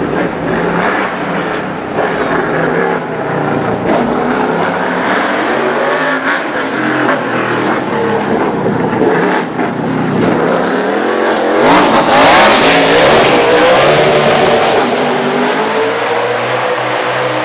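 Toyota Camry NASCAR stock car's V8 engine at race revs as it laps the circuit, its note rising and falling as the driver accelerates and lifts. It is loudest and highest in pitch about twelve seconds in, then falls away.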